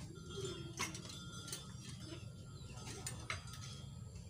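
Metal drum-stand hardware being handled and fitted together: a few scattered sharp clicks and knocks, the strongest about a second in and another just after three seconds, over a low steady hum.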